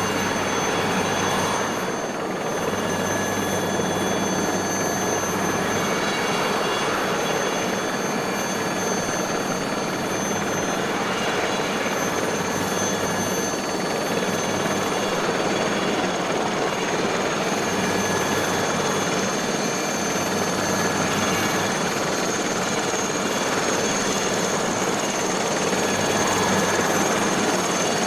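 Aérospatiale SA315B Lama helicopter running steadily: a thick, even rotor and engine noise with the high, steady whine of its Turbomeca Artouste turboshaft on top.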